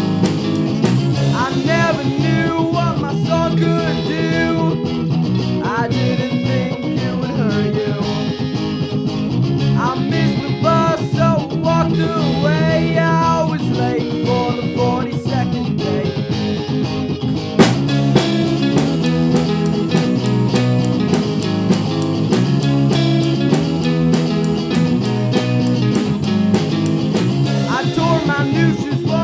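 A rock band playing a song: electric guitars over drums, with a sung vocal line coming in at intervals.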